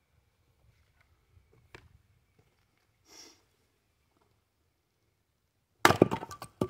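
Fiskars X27 splitting axe striking a partly sawn red oak log near the end: a sharp crack as the wood splits, followed by a quick clatter of split pieces. Before it, only faint ticks.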